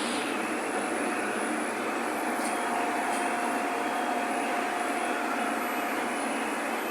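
CNC plasma torch cutting steel plate: a steady hiss with a thin whine held through the middle.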